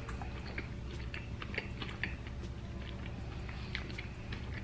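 A man chewing a bite of hot dog on a soft bun, with many small wet mouth clicks, over a low steady hum.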